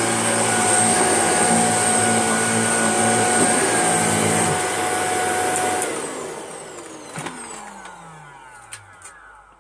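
Shark vacuum cleaner running steadily, then switched off about six seconds in, its motor winding down with a falling whine over the next three seconds. There is a click partway through the wind-down.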